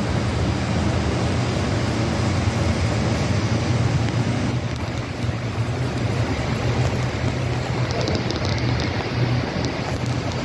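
HO scale model train running past on the layout: a steady rumble and hum, with a few light clicks about eight seconds in.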